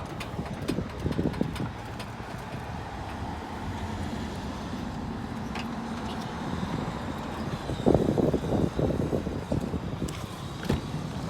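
A vehicle engine running steadily, with scattered clicks and a cluster of louder knocks about eight seconds in.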